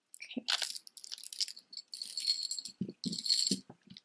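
Costume jewelry (metal chains, rhinestone pieces, glass and plastic beads) clinking and jangling as hands rummage through a pile of it, with a few soft knocks in the second half as pieces are handled and set down.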